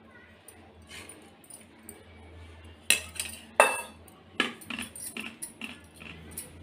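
Kitchen utensils clinking and knocking against dishes. Two sharp knocks come a little under a second apart about three seconds in, then a run of lighter clinks.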